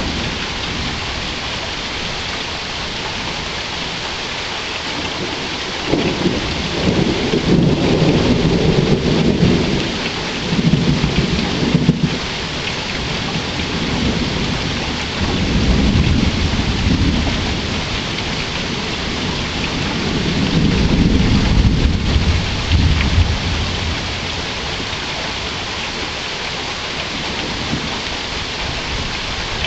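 Steady rain falling, with long rolls of thunder rumbling about six seconds in, again around fifteen seconds and again around twenty seconds.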